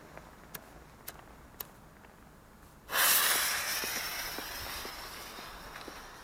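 Firework fountain (TXF566 Fountain Rain, triplex) igniting about three seconds in: a sudden loud hissing rush of sparks with light crackling, slowly dying down. Before it, a few faint clicks.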